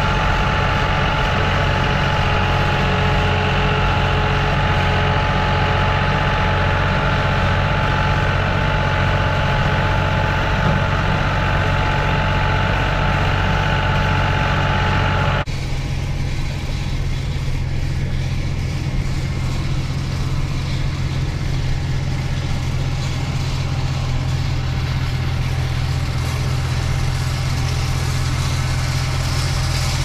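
Case International 385 tractor's engine running steadily as it pulls a V-rake through hay. Its sound changes abruptly about halfway through, where the shot cuts.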